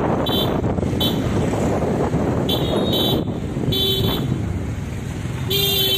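Wind rushing over the microphone and motorcycle running, from riding pillion through town traffic, with about six short horn toots, the last one longer, near the end.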